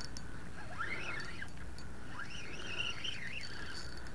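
A bird singing: two phrases of rising and falling whistled notes, the first about a second in and a longer one near the middle, over a steady low rumble of open-air background.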